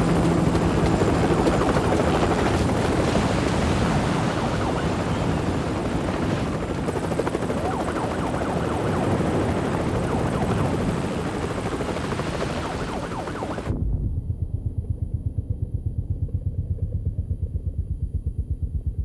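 Helicopter hovering close overhead: a loud, dense rotor and engine noise with a rapid, even rotor beat. About 14 seconds in, the sound abruptly turns muffled, and only a low, rapid rotor beat is left.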